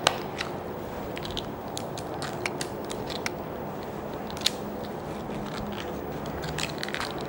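A puppy gnawing a rawhide chew bone: irregular crunches and clicks of its teeth on the chew, over steady background noise.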